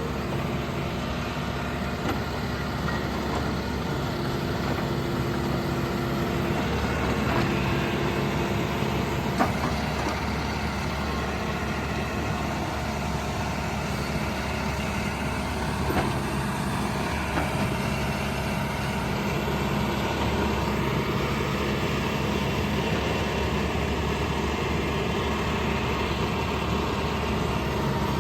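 John Deere 310K backhoe loader's diesel engine running steadily, with a few faint knocks.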